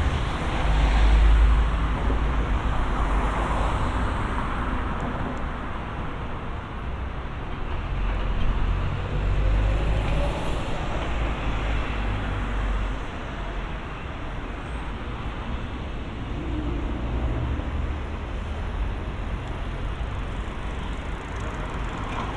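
Road traffic on a city street: a steady low rumble of passing cars and larger vehicles, swelling louder twice as vehicles go by close.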